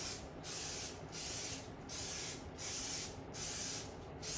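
Aerosol cooking-oil spray hissing in short, evenly spaced puffs, about one every three-quarters of a second, as a muffin tin is greased cup by cup.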